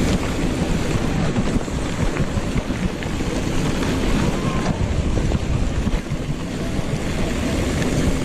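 Wind buffeting the microphone of a camera riding on a moving mountain bike, mixed with the rumble of the tyres rolling over gravel: a steady, loud, low rumbling noise.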